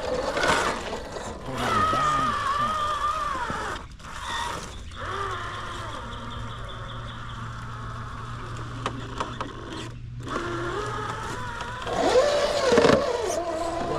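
Electric motor and gear whine of a radio-controlled rock crawler driving over rough ground, the pitch wavering with the throttle. It cuts out briefly twice and grows louder near the end.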